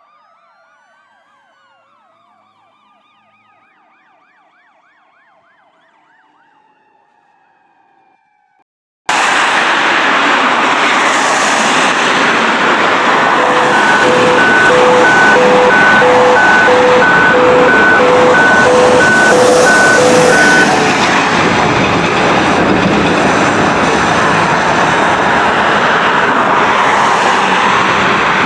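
Fire engine siren wailing and yelping faintly in the distance. About nine seconds in, it gives way abruptly to a loud, steady rush of vehicle noise. Through it, a tone pulses rapidly for several seconds.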